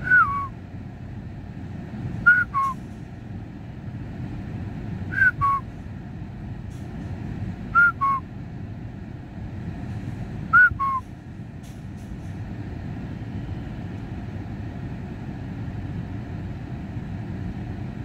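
A person whistling a two-note falling call, a higher note then a lower one, five times at an even pace, over a steady low hum of traffic.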